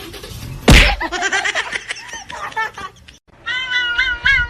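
Cats meowing in a run of short calls that bend up and down in pitch, with a loud thump about a second in. A brief break near the middle is followed by more meowing.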